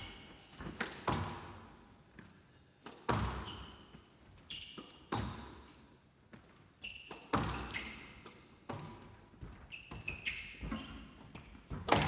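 Squash rally: the ball struck by rackets and cracking off the walls of a glass court about once a second, each hit with a short echo, and shoes squeaking on the wooden floor between shots.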